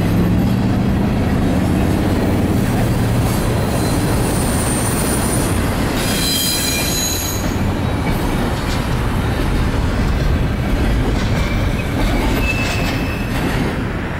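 Double-stack intermodal freight cars rolling past on steel rails: a steady rumble of wheels with brief high-pitched wheel squeals now and then and a clickety-clack over rail joints. The sound drops off near the end as the last car goes by.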